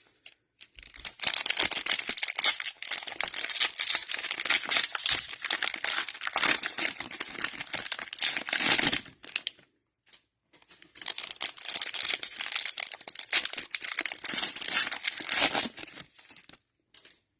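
Cellophane wrapper of a trading-card cello pack crinkling and tearing as it is opened by hand. It comes in two long stretches with a short pause about ten seconds in.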